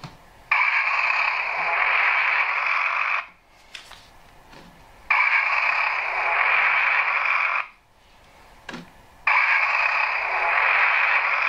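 Onboard sound of a Trix H0 DB class 724 Indusi test railcar model, a rushing, noise-like sound from its small decoder speaker, cutting in and out three times: about two and a half seconds on, then a second or two off, with abrupt starts and stops and a few faint clicks in the gaps. The owner suspects the dropouts come from poor current pickup, perhaps dirty contacts or the blackened wheels.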